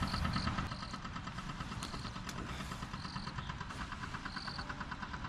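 A distant engine running steadily, a low rumble with a fast even pulse, with a few short high chirps and faint clicks now and then.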